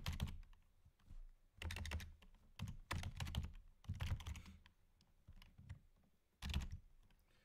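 Typing on a computer keyboard: short bursts of a few keystrokes, separated by pauses.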